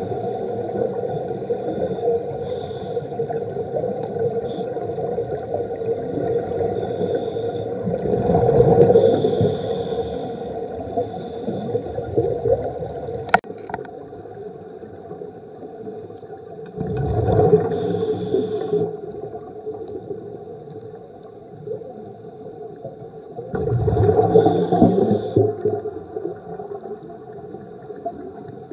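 Scuba regulator breathing heard underwater through a camera housing: a steady muffled hum broken three times by bubbling exhalation bursts of about two seconds each, roughly every seven seconds. A single sharp click about halfway through, after which the hum is quieter.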